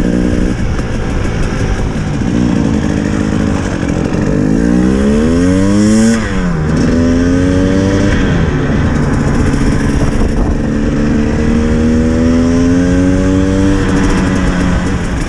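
Dirt bike engine being ridden off-road: the revs climb, drop sharply about six seconds in as the throttle is shut, pick up again, then rise slowly through the latter part before easing back near the end.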